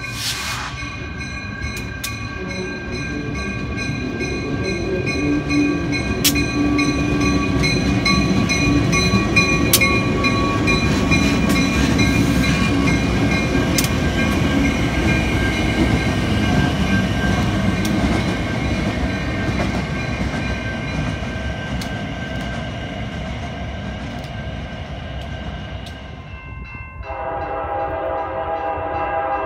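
CN freight train's lead diesel locomotive passing close by with its air horn sounding a steady high chord over the rumble of the engine and wheels, which swells and then fades. Near the end a lower-pitched train horn chord begins.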